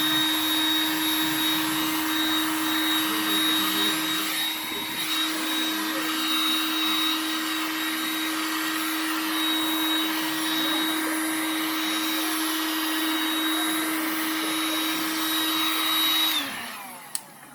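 Heat gun blowing hot air, its fan motor running with a steady hum and a high whine that hold one pitch, then winding down as it is switched off near the end. It is heating plastic to soften adhesive.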